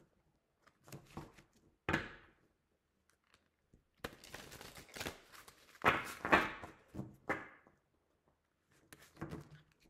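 A deck of tarot cards being shuffled by hand: a series of short shuffling bursts with brief pauses between them, the loudest about six seconds in.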